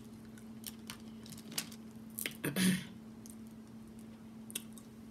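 Snow crab leg shells being cracked and picked apart by hand, a scatter of small clicks and crunches with one louder, longer crunch about two and a half seconds in, then wet eating sounds.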